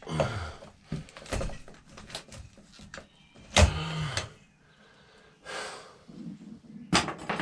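Hand work on motorcycle parts: scattered clicks, knocks and scrapes, with two short creaks falling in pitch, one just after the start and one near the middle, as parts and clips are pried and pulled loose.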